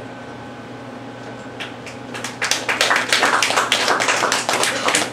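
Audience applauding after a poem. Scattered claps start about a second and a half in and build to steady applause.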